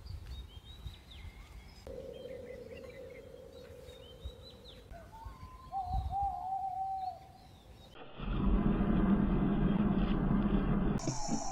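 Tawny owl giving a long, wavering hoot about six seconds in, with faint small-bird chirps earlier. About eight seconds in this gives way abruptly to a louder, steady rushing noise.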